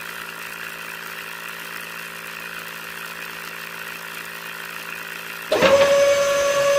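Small toy DC motor humming steadily, then about five and a half seconds in a second small DC motor starts with a quick rising whine and settles into a louder, steady high whine.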